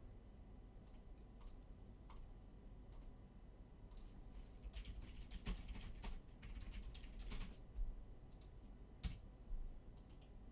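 Typing on a computer keyboard: scattered key clicks, with a quicker run of keystrokes about halfway through.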